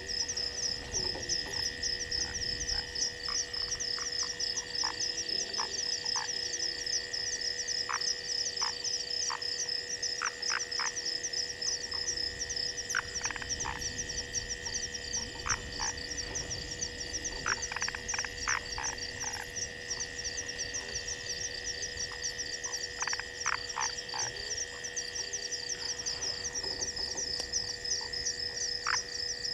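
Frog chorus: a dense, rapid high trilling over a steady lower call, with short clicking notes in loose clusters.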